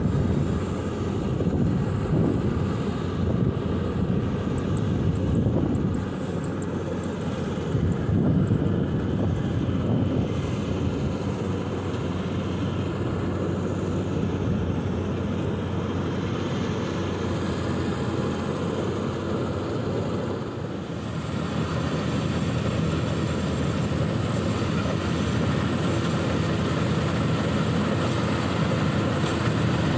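Rice combine harvester running steadily, its diesel engine droning along with the whirring of the threshing machinery. The sound dips briefly about two-thirds of the way through, then carries on more evenly.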